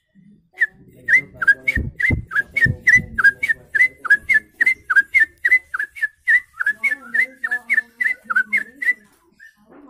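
A man whistling by mouth in imitation of a songbird: a rapid run of short, high chirped notes, about three or four a second, each flicking in pitch, lasting about eight seconds. A few dull low knocks sound about two to three seconds in.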